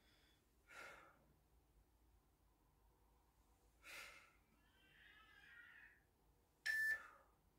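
A man's forceful breathing while he does leg raises on a floor mat: a few short, hard breaths a couple of seconds apart, the last and loudest near the end with a brief whistle-like tone in it.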